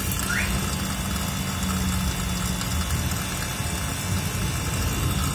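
Steady low mechanical hum of a refrigerated display case's condensing unit running, with its newly fitted Secop NF11FX 1/3 HP R134a hermetic compressor.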